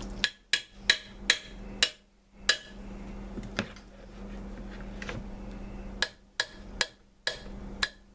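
A spoon knocking against a stoneware crock-pot insert while breaking up soft soap paste in hot water: a dozen or so sharp, irregular clicks, with a pause of a couple of seconds midway.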